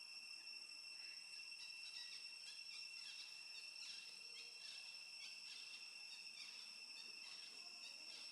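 Faint, steady high-pitched insect trilling, with many short, sharp chirps scattered through it from about a second in.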